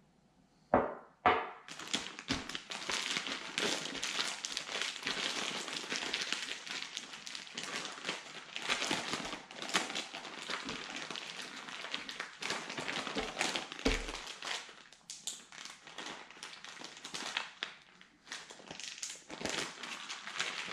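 Plastic zip-top bag crinkling and rustling continuously as raw chicken wings inside are kneaded in sauce. Two sharp knocks about a second in come just before the crinkling starts.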